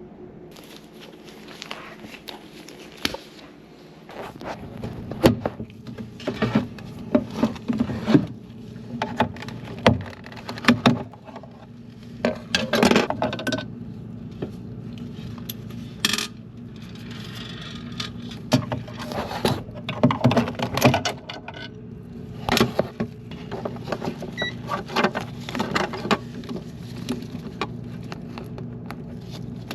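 Irregular clicking, knocking and clinking of plastic and metal parts being handled as a refrigerator is taken apart to reach the air damper. A steady low hum starts about four seconds in.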